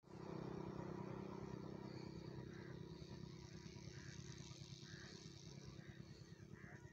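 A low steady rumble with faint crows cawing about once a second from about two seconds in.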